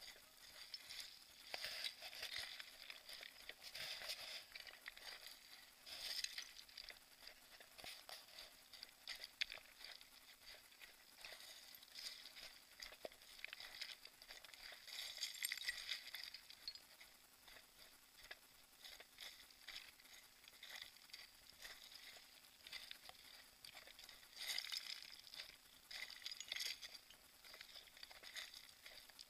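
Footsteps crunching and sliding on loose scree while running downhill, stones clicking and clinking against each other in irregular bursts that come in louder clusters.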